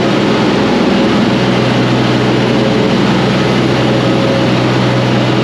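Large diesel engine of a John Deere self-propelled forage harvester running steadily, a loud low drone heard from inside the cab.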